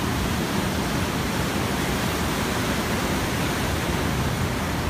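Ocean surf breaking on the shore, a steady, even rushing noise.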